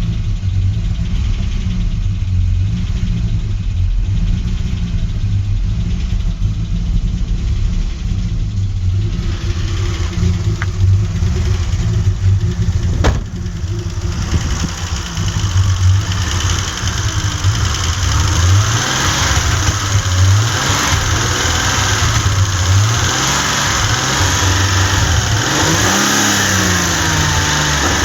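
1984 Alpina B6 2.8's M30 2.8-litre straight-six running with a misfire. It idles roughly for about the first half, with one sharp click near the middle, then is revved up and down several times.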